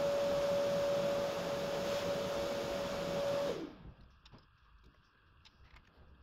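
An electric motor running steadily with a whirring hum and one steady whine, then switching off about three and a half seconds in and briefly winding down. Afterwards only a few faint clicks.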